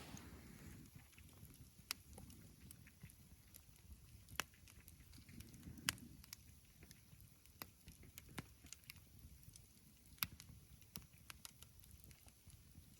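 Wood campfire burning quietly, the wood crackling with sharp, irregular pops.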